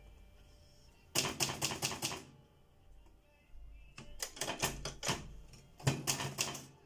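Typing on a keyboard: three quick bursts of keystroke clicks with short pauses between them.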